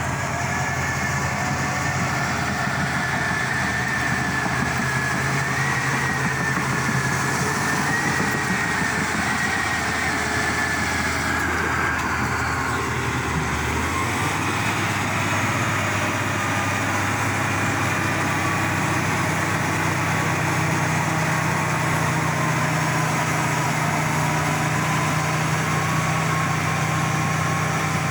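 A heavy diesel engine runs steadily throughout, with a wavering high whine above it; the engine note shifts about halfway through.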